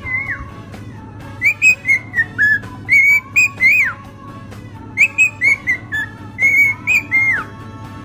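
Cockatiel whistling a tune: several phrases of clear notes with quick upward slides, some phrases ending in a downward glide, over a faint steady low hum.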